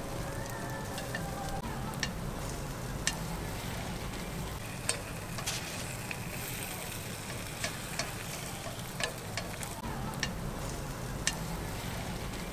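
Batter with red-bean and custard filling sizzling on a chrysanthemum-bread mold plate, with sharp clicks about once a second as a pointed pick works the cakes against the mold.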